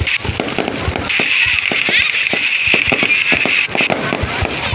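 Fireworks going off: a rapid, irregular string of bangs, with a loud crackling hiss through the middle that cuts off near the end.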